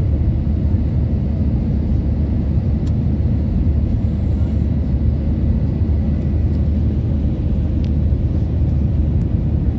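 Steady low rumble of engine and airflow noise inside the passenger cabin of an Airbus A320neo airliner descending on approach to land.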